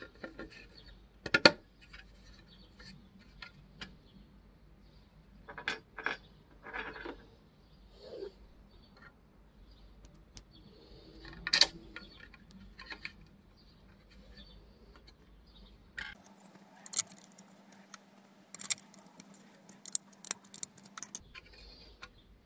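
Scattered clicks and clinks of a metal Allen key and small screws against a 3D-printed plastic fan impeller and motor hub as the impeller is fitted and screwed on. The loudest knocks come about a second and a half in and near the middle, with a quicker run of clicks near the end.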